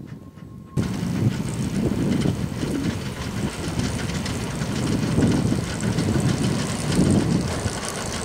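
2 ft gauge Hudswell Clarke 0-6-0 steam locomotive working past with a train of coaches, its exhaust beating in uneven pulses. It is faint for under a second, then loud as the engine is close.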